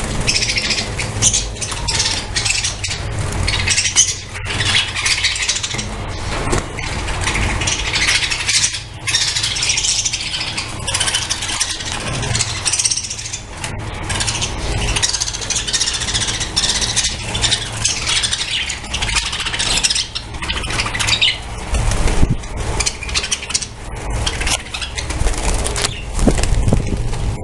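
A colony of budgerigars chattering together, a dense, continuous twittering of many birds at once, over a low rumble.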